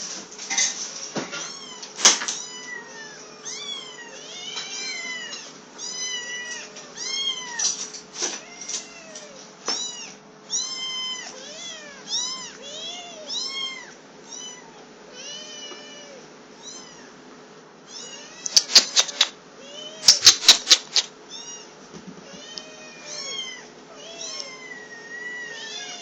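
Two three-to-four-week-old kittens mewing without pause, high-pitched rising-and-falling mews about two a second, one voice higher than the other: hungry kittens calling for food. Twice in the second half, near the end, comes a quick run of sharp taps or clicks, the loudest sounds.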